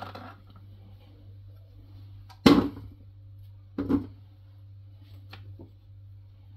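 Knife chopping pumpkin on a plastic cutting board: a few sharp knocks, the loudest about two and a half seconds in and another a second or so later, then lighter clicks near the end, over a steady low hum.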